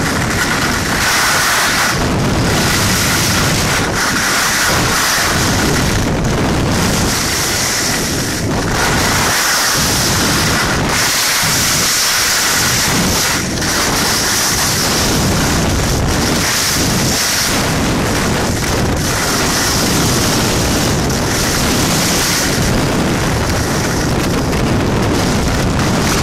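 Wind rushing over the microphone with the steady scrape of skis sliding fast over packed snow on a downhill run, a loud continuous rush that dips briefly a couple of times.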